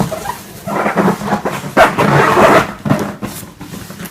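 Cardboard box scraping and rustling, with a few knocks, as a boxed hoverboard is slid out of its outer carton; the noise is loudest in the middle second or two.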